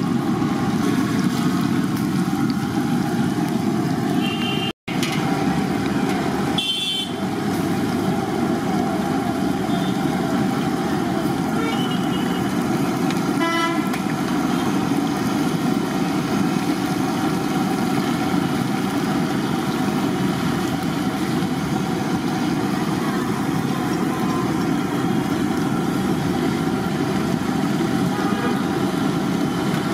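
A large iron kadai of mirchi bajji fritters deep-frying in oil, a steady sizzle over a low rumble. Short vehicle horns sound from street traffic about 4, 7 and 13 seconds in.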